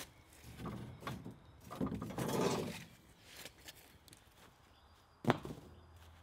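Long metal rods rattling and knocking against each other and the wooden wall as one is pulled from a leaning bundle. One sharp knock comes about five seconds in.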